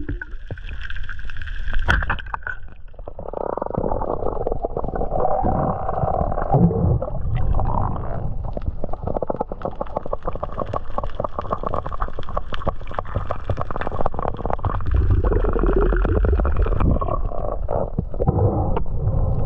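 Underwater camera audio: a sharp snap about two seconds in as the speargun fires at a squid, then muffled rumbling and gurgling water noise with a steady crackle of fine clicks while the speared squid is drawn in on the line.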